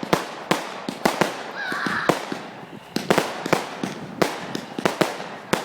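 Fireworks and firecrackers going off: a rapid, irregular string of sharp bangs and crackles, several a second, with a brief hiss about two seconds in.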